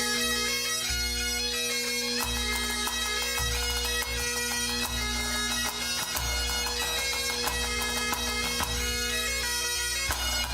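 Scottish pipe band playing a march medley: Great Highland bagpipes sounding the melody over their steady drones, with snare and bass drums beating along.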